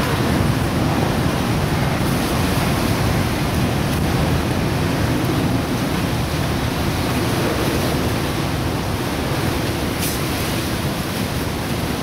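Strong wind blowing and buffeting the microphone: a loud, steady rush of noise, heaviest in the low end, with a brief crackle about ten seconds in.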